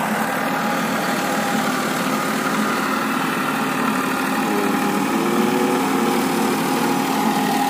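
Massey Ferguson 5245 DI tractor's three-cylinder diesel engine running steadily while ploughing.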